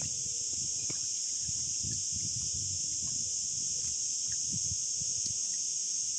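Chorus of cicadas buzzing, a steady high-pitched drone with no pauses, over a faint low rumble.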